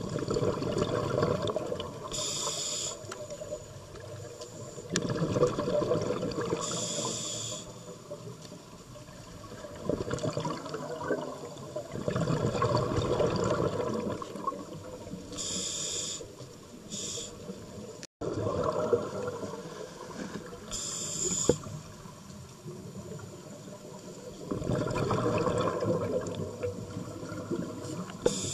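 Scuba diver breathing through a regulator underwater: a short hiss on each inhale and a longer bubbling rush on each exhale, repeating every five seconds or so.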